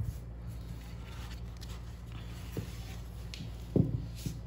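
Soft handling noises as hands clear balls of sugar paste off a white work board, with two light knocks near the end over a low steady hum.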